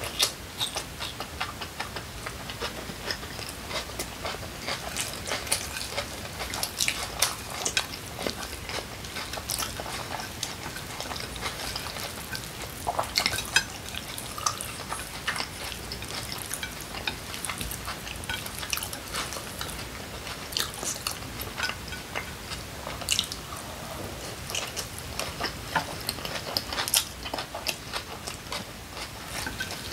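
Close-miked chewing and wet mouth smacks of a person eating kimchi pancake, with many short clicks and a few louder smacks and taps throughout, including chopsticks on a plate.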